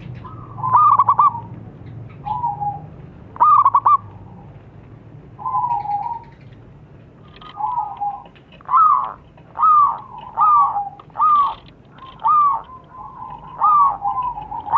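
Zebra dove (perkutut) cooing in repeated phrases: a stuttering higher note dropping to a lower note, about every second and a half at first, then a quicker run of clipped notes from about halfway on.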